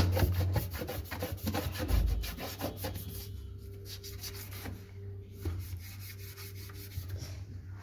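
Small toothbrush scrubbing grime off parts of an automatic washing machine: quick back-and-forth rubbing strokes, stronger for the first three seconds, then lighter. A steady low hum runs underneath.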